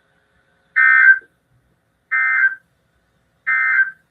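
Emergency Alert System end-of-message tones: three identical short bursts of buzzing SAME digital data, each about half a second long and a little over a second apart. They signal the end of the alert.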